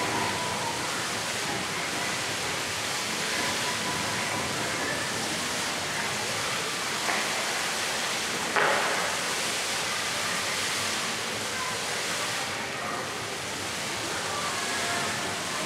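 Fountain water jets spraying and falling back into the pool: a steady rush of splashing water, with a brief louder burst of spray a little past halfway.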